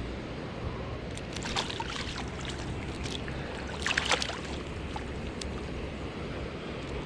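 Running river water with a few brief splashes, a cluster about a second and a half in and a sharper one about four seconds in, over a steady low rumble.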